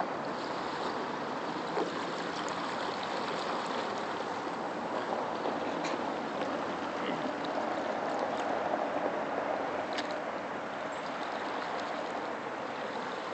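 Steady rushing of flowing river water, with a few faint clicks scattered through it.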